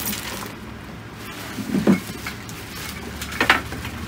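Packaging being handled: rustling of plastic wrap and a padded carry bag, with a dull thump about two seconds in and a sharper knock about three and a half seconds in.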